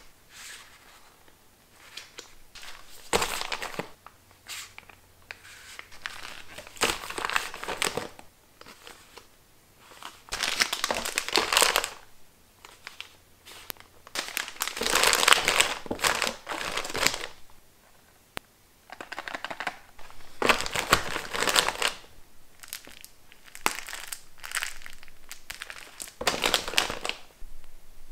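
Plastic and foil face-mask sachets crinkling as hands riffle through them and pick them up. The crinkling comes in about seven separate bursts of a second or two, with quiet gaps between.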